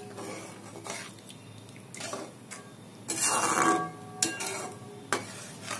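Metal spoon stirring thin gravy in an aluminium kadai, scraping and clinking against the pan in irregular strokes, with the loudest stirring about three seconds in.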